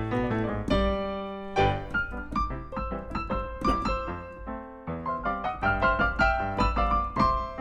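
Piano music: chords and melody notes struck and left to ring, with no singing, dipping briefly about five seconds in before the notes resume.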